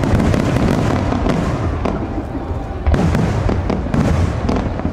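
Aerial fireworks shells bursting one after another in a dense run of booms and crackles, with hardly a gap between them.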